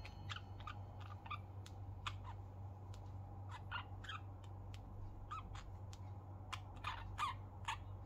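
Two budgerigars making soft, scattered short chirps and clicks at irregular intervals, over a steady low hum.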